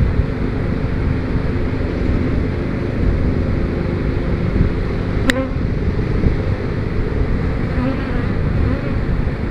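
Honeybees buzzing steadily around an open hive, with one brief sharp click about five seconds in.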